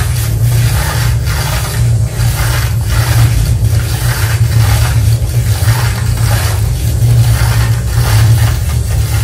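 Electroacoustic sound collage played through a loudspeaker: a loud, steady low hum under a rhythmic scraping pulse, about two strokes a second. It is built from layered recordings of a turning historic laundry mangle with plastic bottles squeezed into it.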